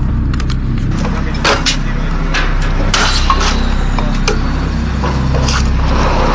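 Steady drone of a motor-driven hydraulic pump unit powering a rescue cutter, with sharp snaps and clinks of concrete and steel rebar breaking under the tool's jaws, half a dozen of them scattered through.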